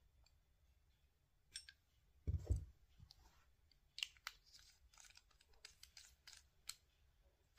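Small handling sounds of a chrome radiator lockshield valve: a dull thump about two seconds in, then a run of light metallic clicks and taps as the lockshield cap is fitted back onto the valve spindle.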